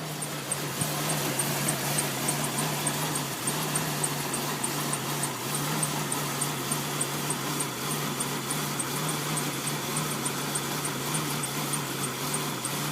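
1999 Jeep Cherokee XJ engine idling rough and missing, its speed wavering in an uneven pulse, with a squeaky fan belt chirping about three times a second. The owner links the miss to a throttle position sensor reading that jumps around at idle.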